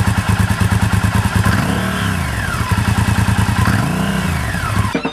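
1999 Honda VTR1000F Super Hawk's 996cc V-twin running at idle and blipped twice on the throttle, the revs rising and falling each time, then stopping abruptly near the end.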